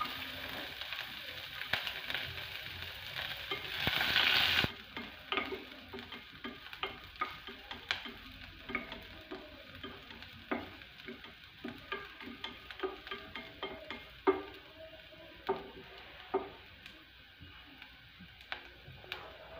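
Chopped onions frying in hot oil in a pot, with a loud sizzle that cuts off suddenly about five seconds in. After that, a wooden spatula stirs the onions and makes many short taps and scrapes against the pot.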